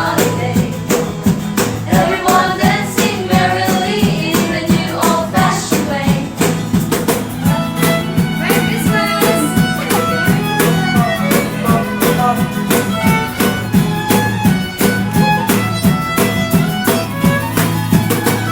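Band music with a steady beat and sustained bass notes. A singing voice carries the melody for the first few seconds, then an instrumental melody with a violin-like sound takes over.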